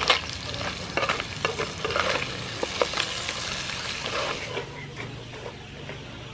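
Wooden spatula stirring pieces of blue crab in a hot wok, the shells clattering and scraping against the pan over a frying sizzle. The stirring stops about four and a half seconds in.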